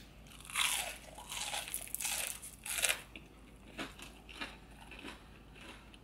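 Close-up mouth sounds of crunching into deep-fried seafood: a run of loud crunchy bites in the first half, then quieter chewing clicks.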